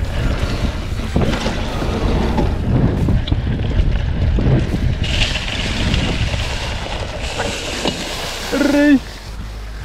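Soul 929 Gravity mountain bike riding down a dirt downhill trail: wind buffets the microphone while the tyres rumble and the bike rattles over the ground. Near the end comes a short pitched sound, and then the noise drops off.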